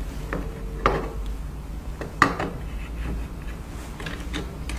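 Handling sounds as a glass crystal blank is set into the sublimation press tray: light rubbing and scraping with a few sharp knocks, about a second in, at about two seconds and near the end.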